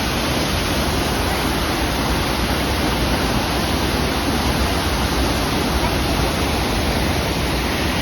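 Waterfall in flood after a severe rainstorm: a loud, steady rush of falling water with a deep rumble.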